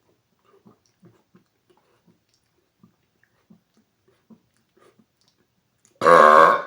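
A man's loud belch, pitched and lasting under a second, near the end. Before it there are only faint, scattered mouth clicks.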